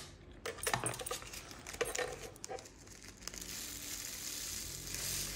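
A small plastic zip bag crinkling and clicking as it is handled, then diamond-painting drills poured from it onto a 3D-printed plastic tray: a steady hissing trickle of tiny beads that starts about three seconds in.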